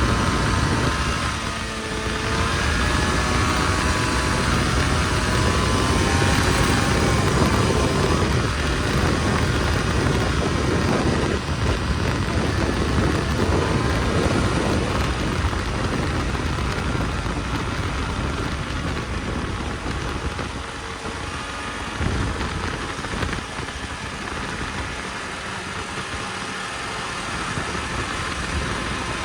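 Snowmobile engine running on the move, its pitch rising and falling over the first few seconds, under a thick, steady rushing noise.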